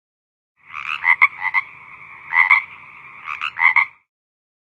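A Nokia 1600 non-MIDI sound-effect ringtone playing once: a buzzy, rattling tone that swells into three louder pulsing bursts about a second apart, with a softer steady tone between them, lasting about three and a half seconds.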